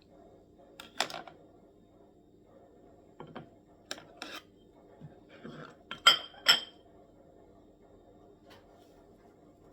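Kitchen utensils and dishes being handled during food prep: scattered knocks and clinks, with two louder ringing clinks about six seconds in.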